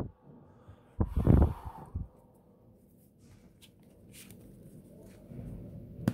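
Close-miked hands handling a can of shaving foam. There is a short loud rustling burst about a second in and a smaller one just after, then faint scratches and taps on the can, and a rising rustle with a sharp click near the end.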